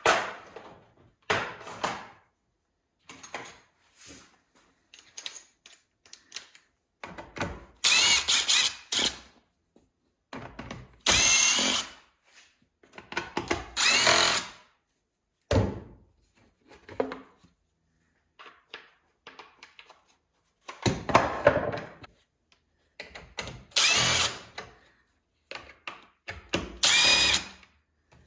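Power drill-driver spinning out the screws of the saw's top cover in several short runs of about a second each, its motor whine gliding up and down in pitch, with small clicks and knocks of handling between runs.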